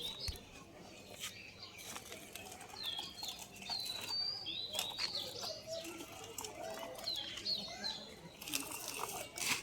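Small birds chirping repeatedly in short high hooked chirps, with scattered sharp clicks and a brief rush of noise near the end.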